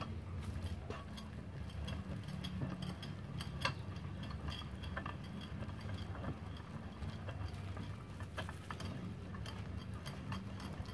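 A MultiPro 8-inch cast-iron swivel bench vise being wound open by its handle, giving scattered light metallic clicks and ticks with one sharper click a little under four seconds in. A low steady hum sits underneath.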